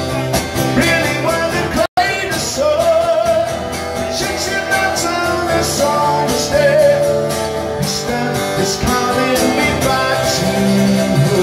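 A man singing over a strummed Takamine acoustic guitar in a solo live performance. The sound cuts out for a split second about two seconds in.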